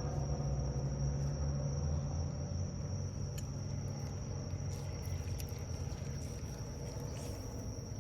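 Crickets trilling in one steady high note, over a low steady rumble, with a few faint clicks midway.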